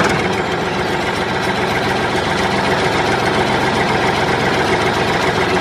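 A motor running steadily, with a fast, even pulse.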